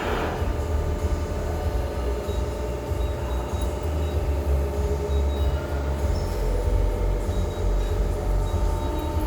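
Ermaksan 200-ton hydraulic CNC press brake running, a steady low hum from its hydraulic pump and motor, with a short hiss right at the start.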